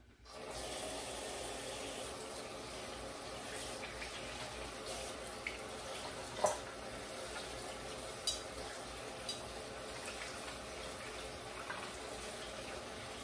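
Kitchen tap running steadily as hands are washed under it, turned on just as the sound begins, with a few light knocks.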